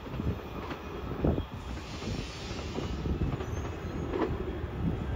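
Amtrak Southwest Chief passenger train moving away down the track, its wheels rumbling and clattering over the rails.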